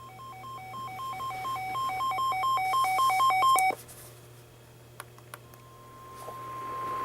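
A weather alert radio sounding its alarm: a rapid, alternating two-tone beeping that grows steadily louder for about four seconds, then stops. Two sharp clicks follow, and then a steady single-pitch warning tone, the NOAA Weather Radio alert tone that comes before a warning message, starts and keeps getting louder.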